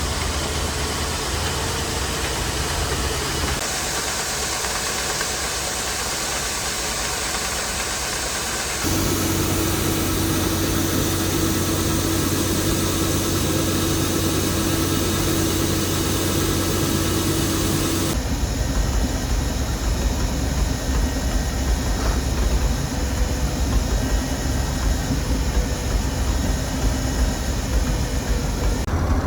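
Farm machinery engines running steadily across several cut-together clips; the engine sound changes abruptly about 4, 9 and 18 seconds in.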